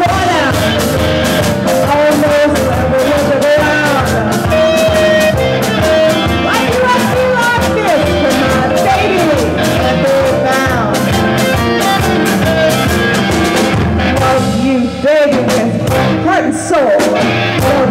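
Live blues-rock band playing: a woman singing lead over electric guitar and a drum kit.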